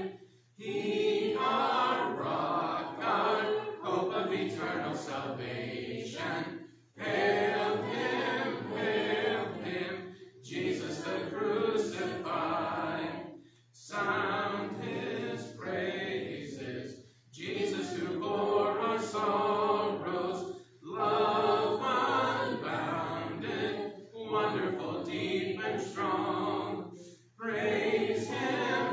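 Congregation singing a hymn a cappella, with no instruments. The singing comes in phrases of about three to four seconds with short breaks between them.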